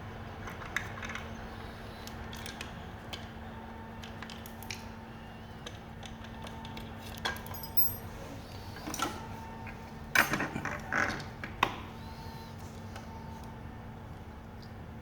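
Small metal parts and hand tools clicking and clinking during disassembly of a rear fender, with a cluster of louder clatters about ten seconds in, over a steady low hum.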